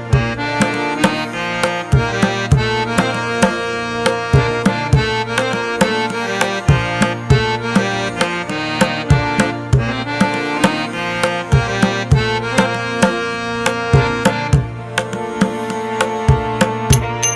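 Instrumental background music: quick, rhythmic hand-drum strokes over a sustained melody and a steady low drone.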